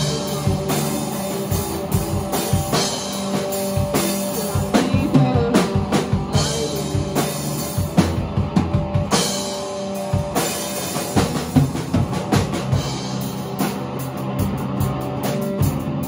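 A small rock band playing live: Telecaster-style electric guitar, electric bass and a drum kit, with the drums hitting hard and often, most of all through the middle.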